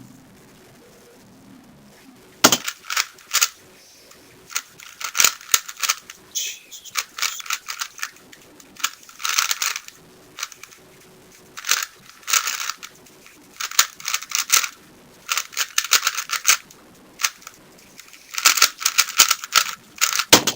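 A 3x3 speed cube being turned fast in a timed solve: bursts of rapid plastic clicking and clattering, broken by short pauses, starting about two and a half seconds in after a quiet stretch.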